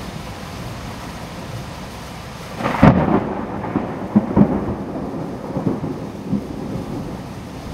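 Steady hiss of a torrential downpour. About three seconds in, a sudden loud thunderclap cracks, then rumbles on in uneven booms for a few seconds.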